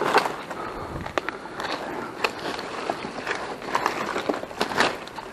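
Dry leaf litter and twigs rustling and crackling in irregular snaps as they are trodden on and pushed aside by hand.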